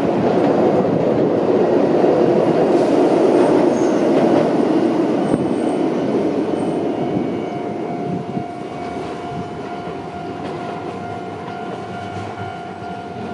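Tram passing close by on street track, a rail rumble with some clickety-clack, loudest in the first few seconds and then slowly fading. About halfway through a steady high tone comes in and holds.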